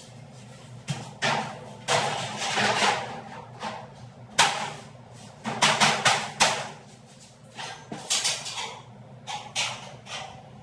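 Irregular knocks and scraping of furniture parts being handled and fitted by hand during assembly. There are about a dozen short bangs and rustles at uneven intervals.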